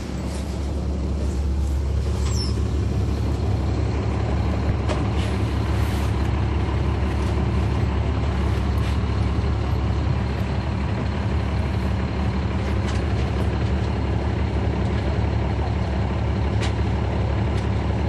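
The Caterpillar C13 inline-six diesel engine of a NABI 40-foot suburban transit bus, heard from the rear seat close to the engine, running loud and steady. It grows louder over the first second or so, then holds level, with a few light clicks and rattles over it.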